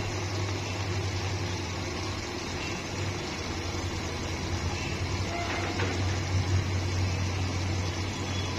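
A pot of lentil soup with kubba simmering on the stove, under a steady low hum and hiss.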